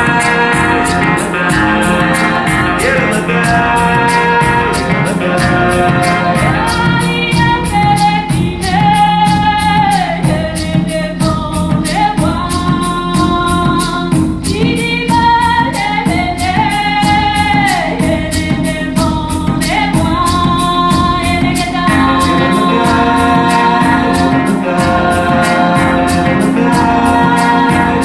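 Recorded music played back over Viva Audio's large multi-horn loudspeakers with their front bass units. A singing voice holds long notes that step and slide between pitches over a steady quick percussion beat.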